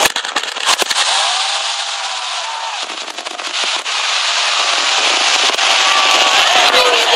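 Aerial fireworks: a quick run of sharp bangs in the first second, then a dense, steady crackling hiss from many shells bursting together.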